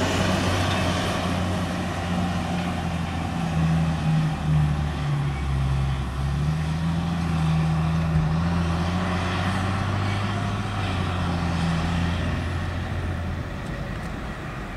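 Diesel engine of a Bell 4206D scraper tractor pulling a loaded pull scraper, running steadily with its pitch wavering up and down under load, then fading a little near the end.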